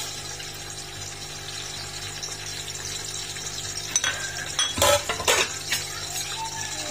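Sliced onions going into hot oil in a large aluminium pot with a faint sizzle over a steady low hum, then from about four seconds in a run of sharp metallic clinks of a utensil against the pot, the loudest a little before the fifth second.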